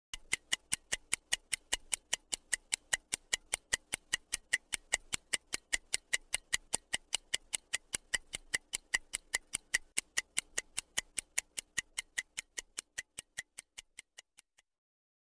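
Stopwatch ticking at a steady pace, about three to four ticks a second, as a countdown timer. The ticks fade and stop near the end.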